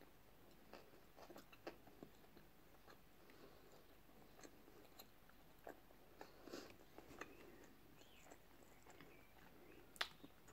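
Faint chewing of a mouthful of sushi: soft, scattered mouth clicks and smacks against near silence, with one sharper click near the end.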